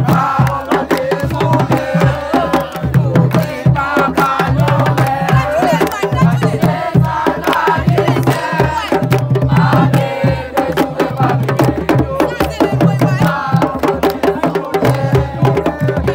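Music driven by fast hand drumming, with a repeating low beat and voices singing over it, as supporters dance to it.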